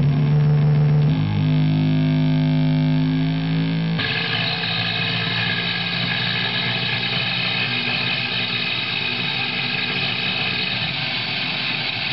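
Noise music from a noise-making machine: a steady drone of held low tones that cuts abruptly, about four seconds in, into a dense hissing wall of noise with a few high steady tones running through it.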